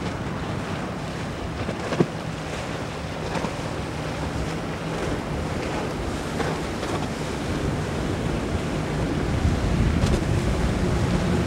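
A Grady-White outboard boat running through choppy inlet water: splashing hull and spray over the sound of waves, with a faint steady engine hum and wind buffeting the microphone. A sharp knock about two seconds in, and the sound grows louder near the end.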